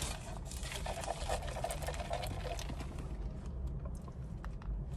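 A paper food wrapper rustling and crinkling as it is handled, in quick scratchy crackles that thin out after about three seconds, over a low steady rumble.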